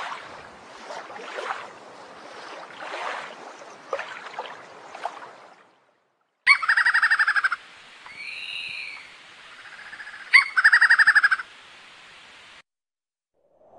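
Water washing on a shore for about six seconds, then after a brief silence bird calls: two bursts of rapid, stuttering calls about four seconds apart, with arching whistled notes in between.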